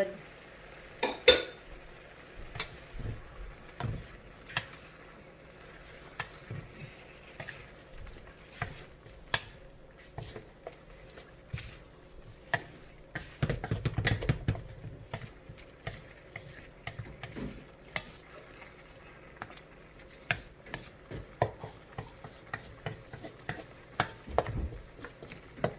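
A utensil clinking and scraping against a cooking pot while pork spare ribs with salted black beans are stirred, in irregular knocks, busiest about halfway through.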